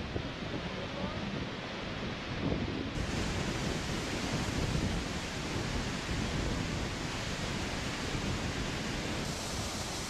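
Steady rushing roar of the Yellow River's water at the Hukou Waterfall. For the first few seconds wind buffets the microphone; the sound changes abruptly about three seconds in and again near the end.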